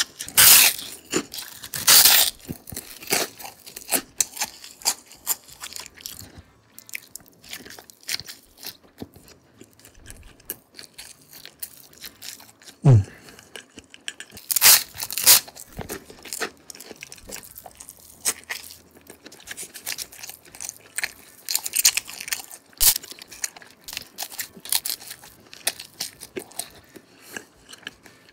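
Close-miked eating: a person biting and chewing crunchy food, with irregular loud crunches, the biggest near the start, about halfway through and again later, between quieter chewing.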